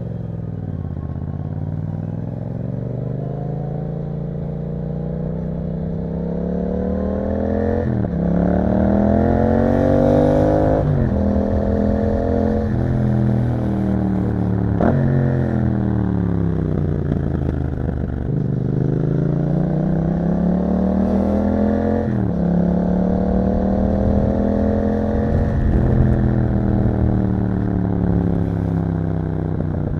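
Yamaha MT-07's 689 cc parallel-twin running through an Akrapovič exhaust, revving up through the gears. The pitch drops sharply at each quick upshift, about four times in the first half. In the second half the revs fall and rise in long sweeps and ease off gradually near the end.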